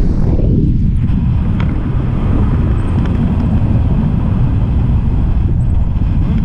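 Wind buffeting an action camera's microphone during a tandem paraglider flight: a loud, steady low rumble.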